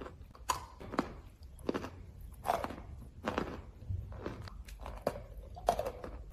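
Close-miked crunching and chewing as a person bites into brittle white chalk-like food: about eight crisp crunches at uneven intervals, each with a short crumbling tail.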